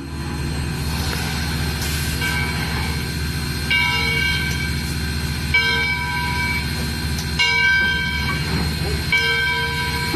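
A locomotive bell rung by hand with its pull cord: about five strokes, one every second and a half to two seconds, each ringing and dying away. The locomotive's steady low running rumble carries on underneath.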